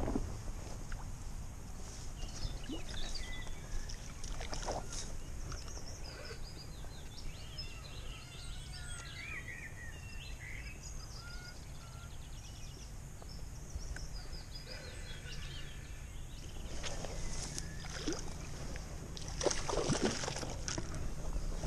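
Small birds chirping on and off over a steady low rumble. Brief rustles and knocks of movement through grass and clothing come now and then and are loudest near the end.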